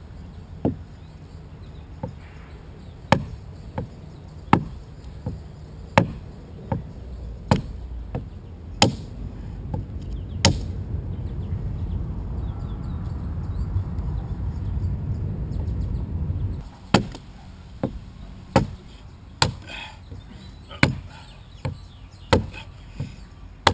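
Adze blade chopping into the side of a log being hollowed into a dugout canoe, with sharp strikes about once a second. Midway there is a pause of several seconds, during which a low rumbling noise builds and then cuts off suddenly before the chopping resumes.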